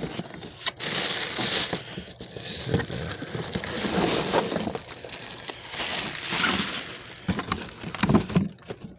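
Packing material crinkling and cardboard rustling and scraping as a wrapped item is pulled out of a shipping box, with irregular handling knocks.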